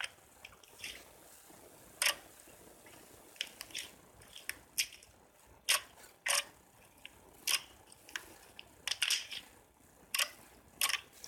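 Slime being squeezed and worked by hand, giving a dozen or so irregular sharp crackles and pops as air pockets burst, bunched together near the end.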